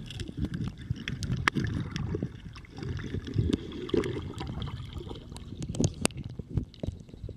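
Underwater sound from a submerged camera: low, churning water movement with scattered sharp clicks and crackles throughout.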